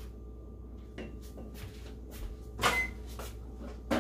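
Kitchen clatter: a few separate knocks and clinks of utensils and cookware, the loudest about two-thirds of the way in with a short metallic ring, over a low steady hum.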